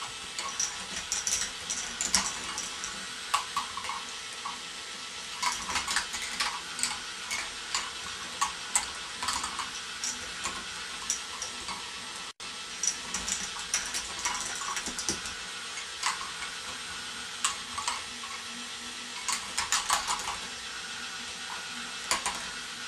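Plastic balls of a K'nex ball machine rolling and clattering along plastic tracks and motor-driven lifts: many irregular small clicks and rattles over a steady whir, with a brief break about halfway.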